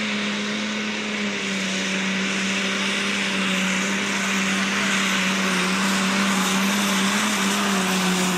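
Modified pulling tractor's diesel engine running flat out under full load as it drags the weight-transfer sled, a loud steady high-revving note over heavy hiss.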